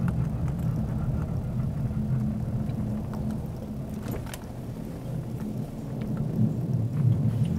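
Vehicle driving on a snow-covered road, heard from inside the cabin: a steady low drone of engine and tyres that dips slightly about halfway through, then picks up again.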